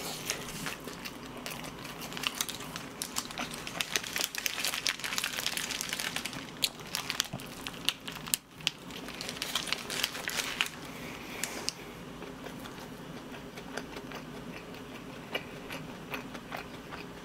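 Close-up eating of a toasted sandwich in a paper wrapper: bites and chewing mixed with the paper crinkling, a dense run of small crackles and clicks for about the first twelve seconds, then quieter with only scattered clicks.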